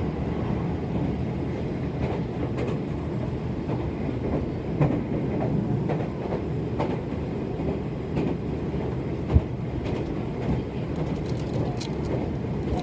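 Meitetsu limited express train running at speed, heard from inside the carriage: a steady rumble of wheels on rail with scattered short clicks and one sharp knock about nine seconds in.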